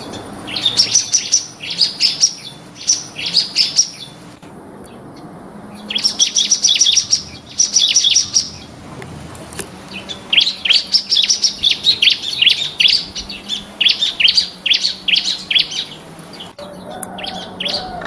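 Bar-winged prinia (ciblek) singing: runs of quick, high, repeated chirping notes, broken by short pauses, the longest unbroken run lasting about six seconds near the middle.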